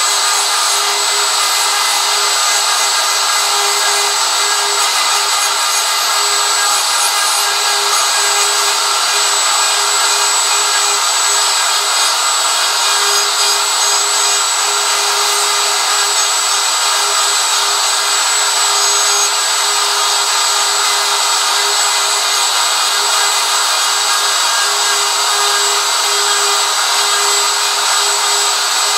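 DeWalt DW618 router with a 90-degree V-bit running at one steady pitch while cutting continuously into wood, routing out the textured background of a carved sign.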